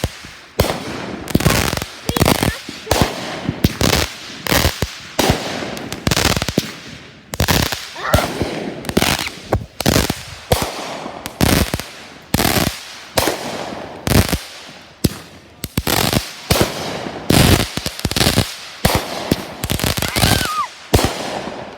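Fireworks going off in quick succession, one or two loud bangs a second, each trailing off in an echo.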